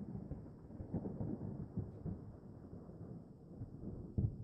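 Handling noise from black rubber-gloved hands working a homemade cartridge-case lighter: low rubbing and dull knocks, with a louder thump about four seconds in.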